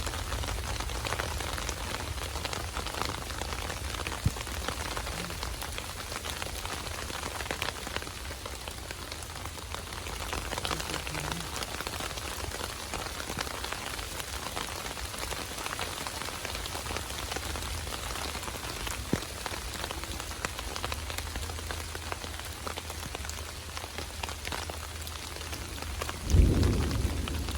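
Steady rain falling, with many small drop hits close by. A short low thump stands out near the end.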